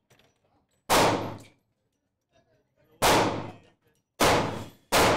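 Four handgun shots, each a sharp bang trailing off in a short echo from the indoor range: one about a second in, then three more from about three seconds in, roughly a second apart.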